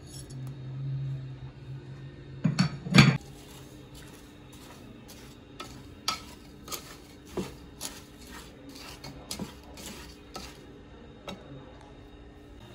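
Two sharp clinks of a glass saucer tapped against a metal pot, then a wooden spoon stirring diced pumpkin and sugar, knocking against the pot's sides about twice a second.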